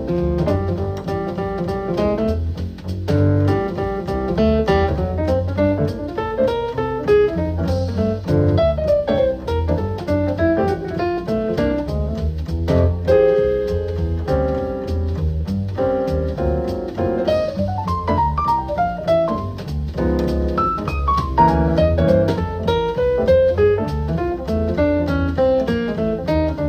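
Instrumental jazz-style music with guitar, piano and a heavy bass line, played back through a Bugani portable Bluetooth speaker as a sound test.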